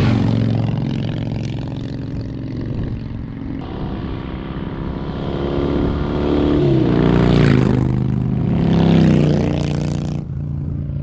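V-twin cruiser motorcycle engines running under throttle on a dirt track, with two loud pass-bys about seven and nine seconds in, the engine pitch dropping as each bike goes past.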